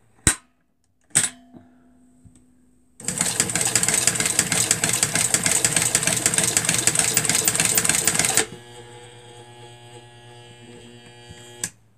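Small electric sewing machine: a couple of clicks, then about three seconds in it runs at speed with a rapid needle clatter for some five seconds, then drops to a quieter steady hum that ends with a click.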